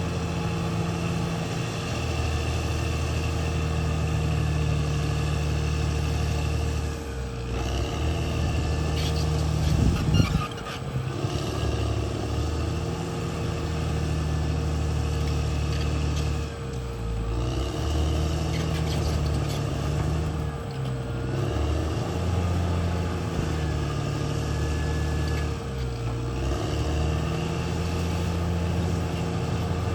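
Caterpillar D6R XL bulldozer's diesel engine running steadily, its sound dipping briefly several times, with a sharp knock about ten seconds in.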